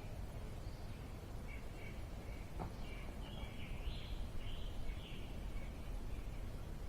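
Birds chirping faintly over a steady low background rumble, the chirps clustering in the middle few seconds, with one small click about two and a half seconds in.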